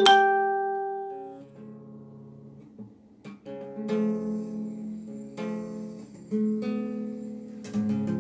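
Background music on acoustic guitar: a loud plucked note at the start rings out and fades, then a series of gentler plucked and strummed chords.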